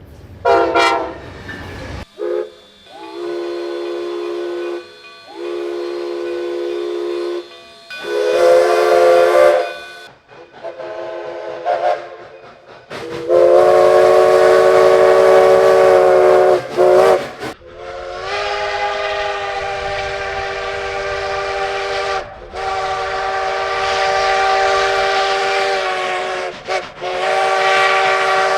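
Locomotive chime sounding one chord of several notes in a series of blasts. The blasts are short and broken in the first half, then held for several seconds at a time, with a hiss under the louder blasts.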